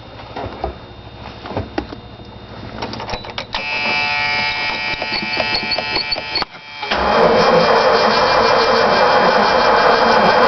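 A 1978 Ford Bronco's warning buzzer sounds for about three seconds and cuts off as the key is turned. Then the starter motor cranks the 460 big-block V8 steadily and loudly, with the battery being jumped.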